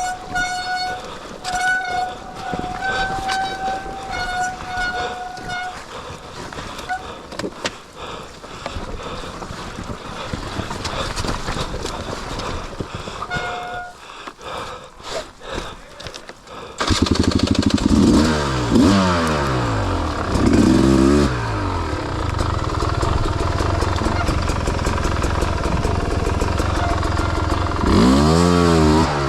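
Two-stroke dirt bike engine running loudly from about halfway through, revving up and down in several quick sweeps and again near the end. Before that comes a lower mix of background noise, with a steady high tone that stops and starts during the first few seconds.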